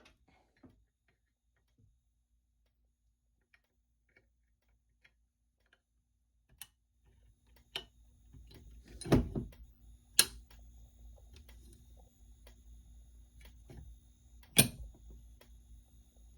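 Scattered faint clicks, then about seven seconds in a faint steady hum with thin steady whines starts. Three sharp knocks follow, about nine, ten and fourteen and a half seconds in.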